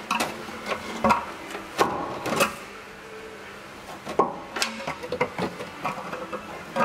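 A welded aluminium breather tank knocking and scraping against the engine bay and braided hoses as it is worked into place by hand: a run of irregular metallic clunks and rubs.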